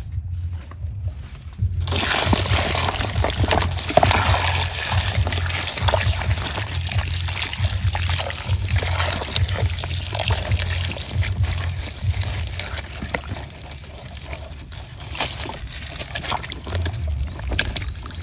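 Water splashing and trickling, a continuous noisy rush that starts about two seconds in.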